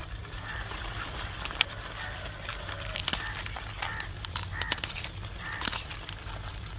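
Crows cawing in the background, short calls about once a second, with a few sharp cracks as crab shells are broken and peeled by hand.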